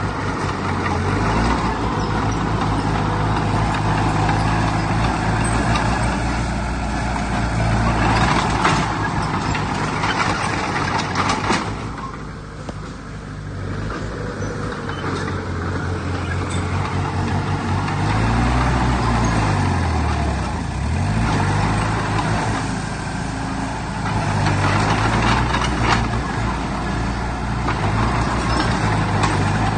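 Heavy diesel earthmoving machinery (bulldozer and dump trucks) running steadily. About two-thirds of the way through, an engine's pitch sinks and then climbs back, and there are a few clanks and rattles along the way.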